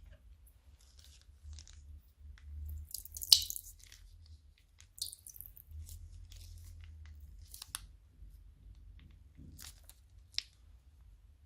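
Crunchy slime being squeezed and worked by hand, giving scattered sharp crackles and squishes, the loudest about three seconds in.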